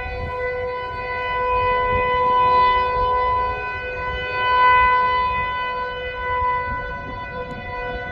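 Outdoor tornado warning siren sounding a steady tone during a test. Its pitch holds steady while it swells louder and fades twice.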